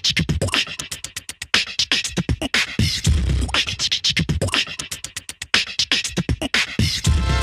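Background music with a drum-heavy beat: deep kick thumps and sharp percussive hits.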